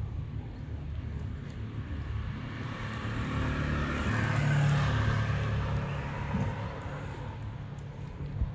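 A car passing by, its tyre and engine noise swelling to a peak about halfway through and then fading away.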